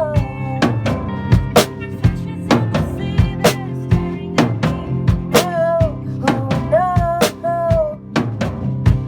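A band rehearsing a rock song: drum kit with bass drum and snare hits keeping a steady beat under guitars and bass guitar, with a wavering, bending melody line on top.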